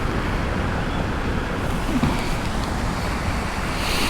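Wind buffeting the microphone, a steady rushing noise with a low rumble.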